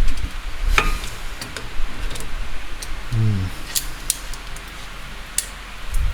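Metal clicks and knocks of multi-grips working against a rear brake caliper, squeezing the piston back in, which he suspects is jammed. A short grunt about three seconds in.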